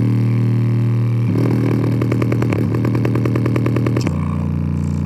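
JBL portable Bluetooth speaker playing deep, distorted bass at full volume, its passive radiator pushed to extreme excursion. The held bass note changes pitch about a second in and again near the end, and in between a rapid rattling pulse of about eight a second rides over it.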